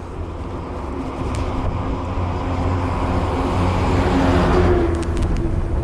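A motor vehicle passes by, its engine and tyre noise swelling to a peak about four and a half seconds in, then easing off near the end.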